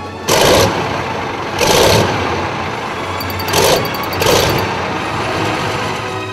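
Tank engine sound effect: an engine starting and running steadily, with four loud revving bursts in the first half.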